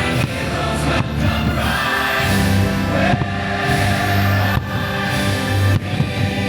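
Fireworks show soundtrack: orchestral music with a choir singing, heard over the park's loudspeakers, with a few sharp hits during the music.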